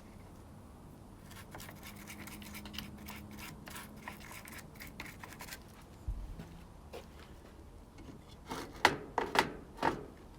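Hand work on chainsaw parts: a run of quick scraping and rubbing strokes, a dull thump about six seconds in, then four or five sharp clacks near the end, the loudest sounds here.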